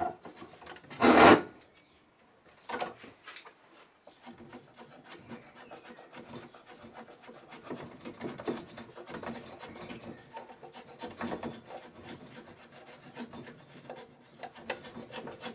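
Hand file or rasp scraping the dry wooden end of a walking stick, shaping it to take a knob: repeated uneven rasping strokes, with one loud stroke about a second in.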